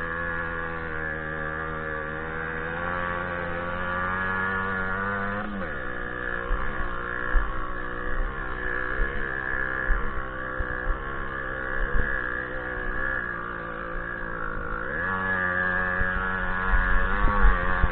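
Small two-stroke moped engine heard from on board while racing over a grass track: it runs at high revs, drops to lower, uneven revs about five seconds in with jolts and knocks from the rough ground, then climbs back up near the end.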